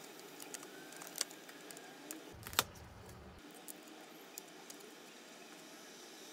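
Small scissors snipping around a cut-out figure in clear plastic film: a string of faint, irregular clicks, the sharpest about two and a half seconds in.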